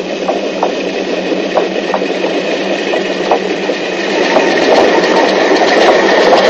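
A small narrow-gauge steam locomotive running with its train, a steady noise of engine and wheels with scattered clicks. It grows louder over the last couple of seconds.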